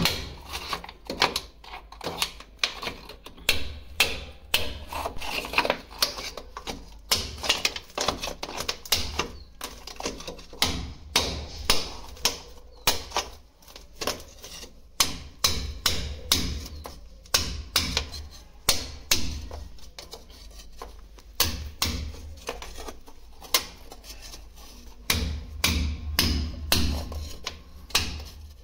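Repeated sharp hammer strikes, irregular at two or three a second with brief pauses, over a low steady hum.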